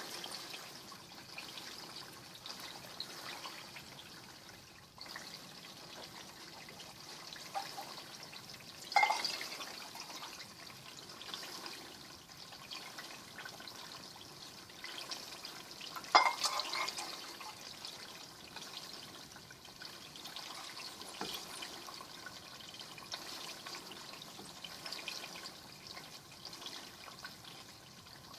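Melted pork leaf lard being strained off into jars: a steady trickle and drip of hot liquid fat, with two sharp clinks about nine and sixteen seconds in.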